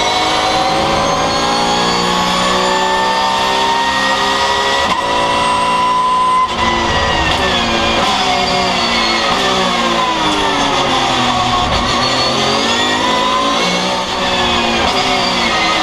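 Porsche 911 GT3 Cup race car's flat-six engine heard from inside the cockpit at racing speed. The revs climb hard for about six seconds and break sharply at a gear change, then fall for several seconds as the car slows. Near the end the engine pulls up through the revs again, with another short break.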